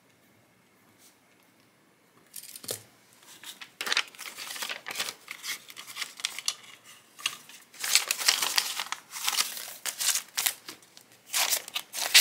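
Paper banknotes rustling in the hands and a clear plastic binder pocket crinkling as cash is sorted and slid into it. The rustling starts about two seconds in and comes in irregular crinkly bursts.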